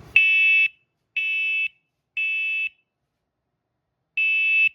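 Combination smoke and carbon monoxide alarm with voice warnings sounding its test alarm: loud half-second beeps in the temporal-three pattern, three beeps about a second apart, a pause, then the next group of three beginning.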